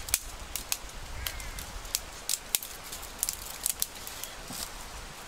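Dry twigs snapping and brush rustling as small branches are broken off by hand: an irregular run of sharp snaps.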